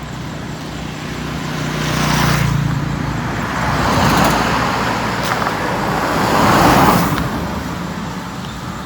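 Road traffic: vehicles passing one after another, their tyre and engine noise swelling three times and fading, over a steady low engine hum.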